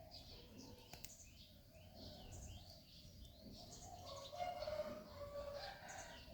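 Small birds chirping repeatedly in the background. Partway through, a steadier lower-pitched tone joins in and becomes the loudest sound.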